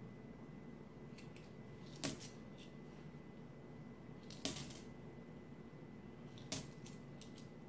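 Jefferson nickels clinking as they are handled and set down one at a time: three sharp metallic clicks about two seconds apart, with fainter ticks between, over a low steady room hum.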